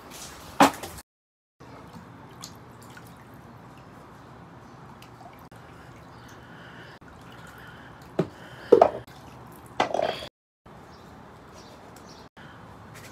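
Water splashing and dripping as a reptile hide is dunked into a water tub and lifted out, with a few short loud splashes near the end; the sound is broken by sudden cuts.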